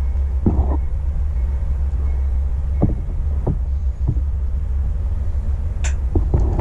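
Small metal carburetor parts clicking and knocking as they are handled on a work surface, about six light knocks at uneven intervals, over a steady low rumble.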